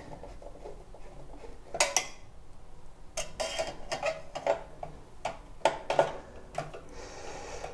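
Screwdriver driving a CPU cooler's mounting screw down through the heatsink bracket: irregular light metal clicks and clinks as the screw is turned and the tool touches the metal.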